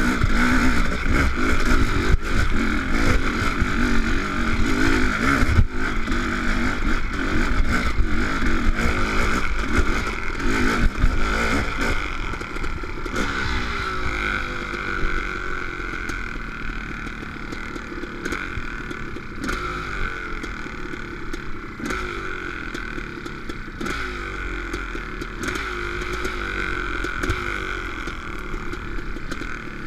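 Honda CR500's 500 cc two-stroke single-cylinder engine revving up and down as the dirt bike is ridden over hilly trail. It is louder with harder throttle for the first dozen seconds, then eases to a lower, softer run with its pitch rising and falling.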